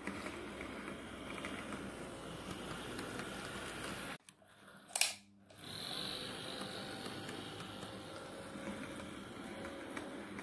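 HO-scale model diesel locomotives running along the track, a steady mechanical whirr of motor, gearing and wheels on the rails. The sound drops out briefly a little past four seconds in, with one sharp click about a second later, then the whirr resumes.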